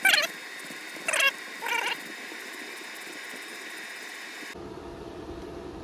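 Three short, high calls from a pet animal within the first two seconds, the first the loudest.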